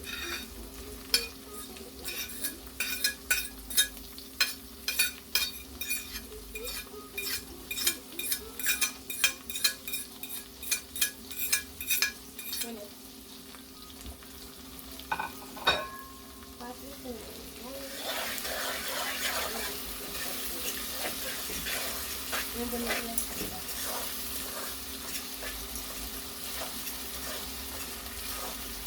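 A spoon knocking and scraping against a pot in quick, uneven strokes as food is stirred. About eighteen seconds in, a steady sizzle of saltfish frying in hot oil takes over.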